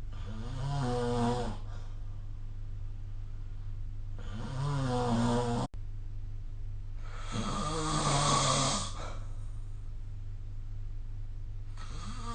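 A person snoring in a steady rhythm: three snores, each a second or two long with a buzzing pitch, and a fourth starting near the end, about one every three to four seconds.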